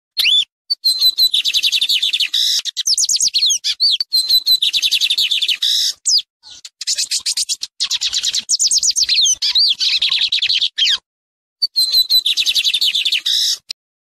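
Lined seedeater (bigodinho) singing: phrases of one to three seconds, several opening with a few short whistles and running into a fast series of high sweeping notes, with short breaks between phrases and a longer pause about eleven seconds in.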